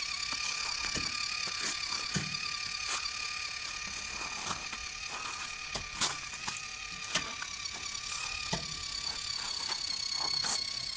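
Small electric motor and gearbox of a WPL radio-controlled truck whining steadily as it drives, with scattered clicks and rattles from the wheels and log trailer rolling over gravel.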